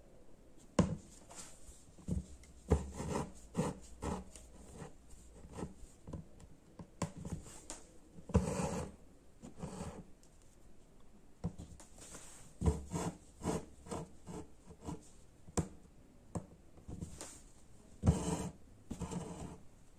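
Hand embroidery: a needle punching through tightly stretched new cloth in a hoop and yellow embroidery thread drawn through it, a series of short rasping rubs with sharp taps and pops between them. Longer pulls come about halfway and near the end.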